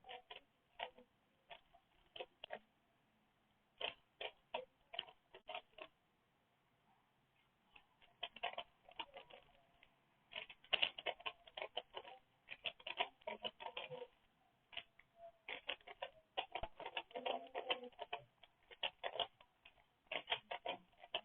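Rubik's Cube layers clicking as they are turned by hand during a speedsolve, in irregular runs of quick clicks. The clicks are sparse at first and come in denser runs from about a third of the way in.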